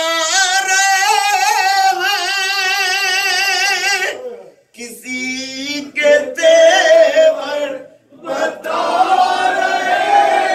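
A man chanting a mourning lament (noha) into a microphone over a PA, holding long notes with a wavering vibrato, broken by short pauses. From about nine seconds in, more voices chant along with him.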